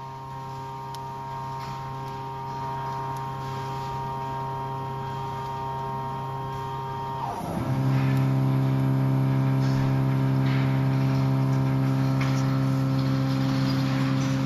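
CNC foam cutting machine running with a steady motor hum. About seven seconds in the hum shifts in pitch and becomes louder, as the machine changes speed.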